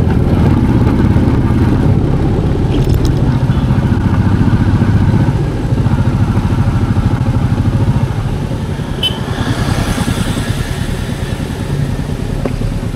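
Motorcycle engine running while the bike is ridden, a steady low drone that eases off in the second half as the bike slows.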